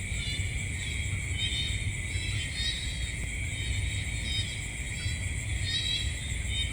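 Night-time insect chorus: a steady high-pitched shrill drone, with short chirping calls repeating every second or so, over a low rumble.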